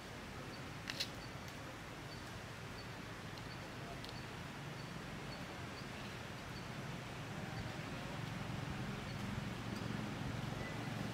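Steady outdoor background noise with a faint high chirp repeating about twice a second, a sharp click about a second in, and a low hum that grows louder in the second half.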